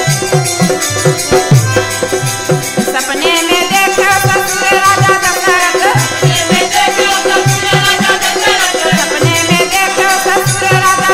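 Wedding folk-song music: a hand drum beats a steady rhythm with a shaker or rattle, over held drone tones, and a wavering, ornamented melody comes in a few seconds in.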